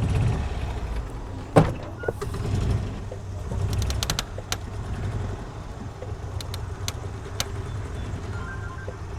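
Golf cart engine running with a steady low hum, with scattered sharp clicks and knocks over it.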